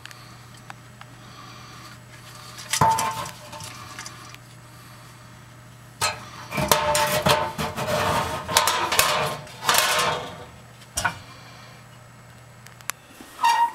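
Metal clinking and rattling inside a kitchen oven's cavity as the bake element and its wire terminals are handled and the wires worked loose. There are a few sharp clinks about three seconds in, a dense run of rattling from about six to ten seconds, and a single ringing clink near the end, over a steady low hum.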